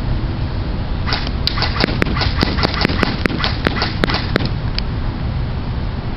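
Airsoft MP5 firing single shots in quick succession: about fifteen sharp cracks at an irregular pace of a few a second, starting about a second in and stopping near the five-second mark, over steady low background noise.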